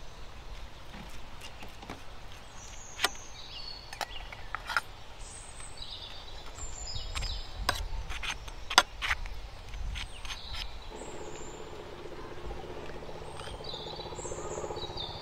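Steel spoon clinking sharply against a steel plate several times while ghee is spread on a millet flatbread, with small birds chirping in the background.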